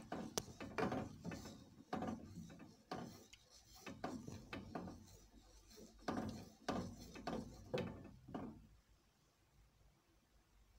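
Wooden spatula stirring a thick milk-and-flour caramel mixture in a metal saucepan, scraping the pan in a run of repeated strokes that stop about eight and a half seconds in.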